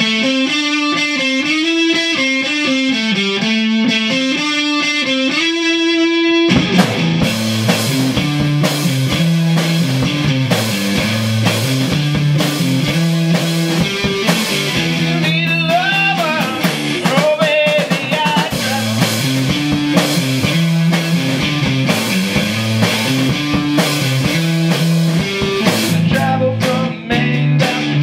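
Electric guitar playing a repeating riff on its own, then a drum kit comes in about six and a half seconds in and the two play a rock jam together.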